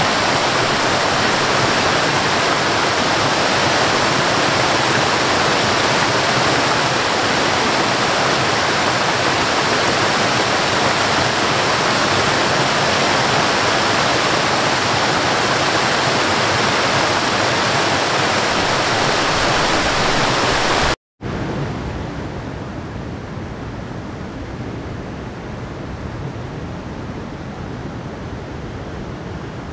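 Waterfall cascading over rock ledges: a steady, loud rush of water. About 21 seconds in it cuts off for a moment and gives way to the quieter, duller rush of a mountain stream running over rocks.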